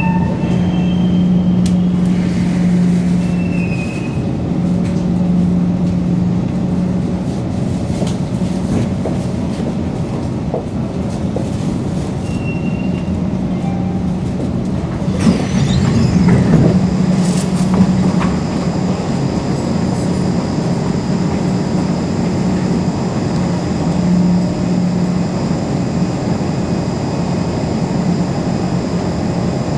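Singapore MRT train heard from inside the carriage: a steady low hum and rumble, with a brief louder burst of knocks and noise about halfway through.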